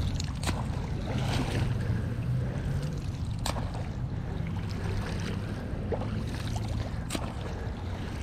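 A long-handled landing net being swept and splashed through lake water, with three sharp knocks spread through and a steady low rumble underneath.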